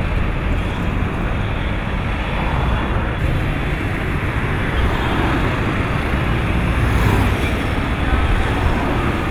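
Steady city road traffic: a continuous mix of vehicle engines and tyre noise.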